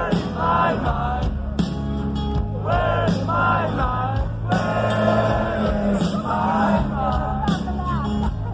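Rock song with a lead singing voice over bass and drums.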